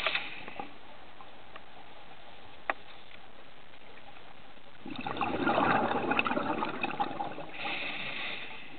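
Underwater bubbling and crackle heard through a camera housing, with a single sharp click a few seconds before a loud burst of bubbling that starts about five seconds in and lasts a couple of seconds.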